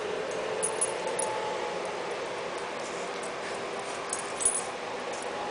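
Steady background hum with faint held tones, and a few light clicks and clinks from kittens at play: a couple about a second in and a small cluster about four seconds in.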